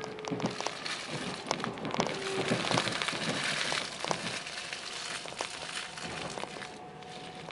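Inside a Meitetsu 2000 series μSKY electric train: running noise of hiss with many irregular clicks and crackles, louder for a couple of seconds in the middle, with faint steady tones underneath.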